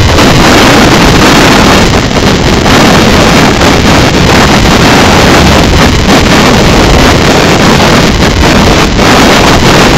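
Loud, constant wind buffeting the microphone of an onboard camera on a racing sailboat under sail, mixed with water rushing past the hull.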